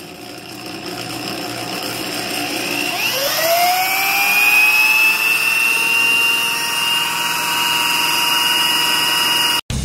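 Corded DeWalt drill spinning the crankshaft and finned flywheel of a lawnmower engine that has no piston, the case serving only as a bearing housing. The whine rises steeply in pitch as it speeds up a few seconds in, then holds steady at full speed, and it cuts off suddenly near the end.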